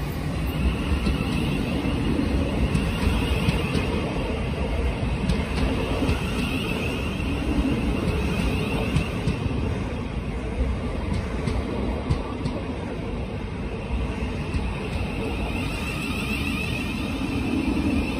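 Thameslink Class 700 electric multiple unit pulling into the platform and running past. There is a steady rumble of wheels on rail, scattered clicks over the rail joints and a high whine that fades briefly and comes back near the end.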